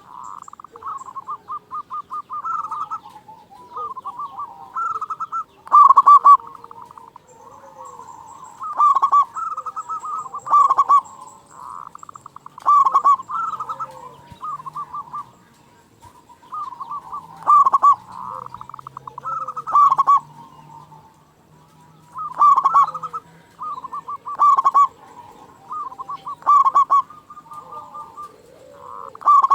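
Local perkutut (zebra dove) cooing: short phrases of rapid, pulsing coos repeat roughly every two seconds, with a few brief pauses.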